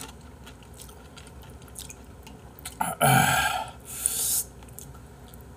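A person eating hot noodle soup. At first there are only faint utensil clicks. About three seconds in comes a loud, breathy vocal outburst with a low falling voice, like a burp or a hard exhale, and then a short puff of breath, blowing on noodles lifted from the bowl.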